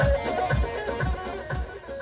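Kurdish halay dance music with a steady drum beat about twice a second under a melody line, fading out.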